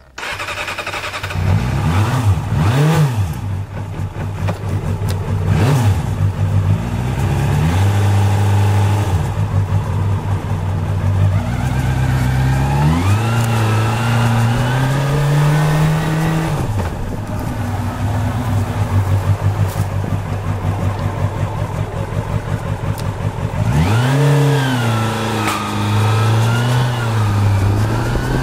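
Kawasaki Balius 250 inline-four engine, blipped a few times in the first seconds, then running and revving up and down twice. The owner hears a buzzing rattle in it, a 'guwaa' like a frog or duck, which he cannot place between the engine and the handlebar area.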